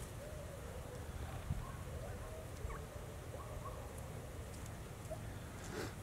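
Two wild turkey toms fighting: faint wavering calls and short chirps over a steady low background rumble, with a brief swish near the end.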